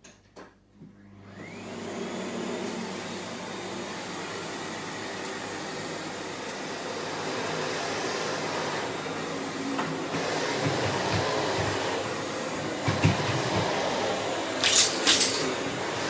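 Miele C3 canister vacuum cleaner switched on: a couple of clicks, then the motor spins up with a rising whine and settles into a steady running noise that grows louder as it comes closer. A few loud sharp clatters break in near the end.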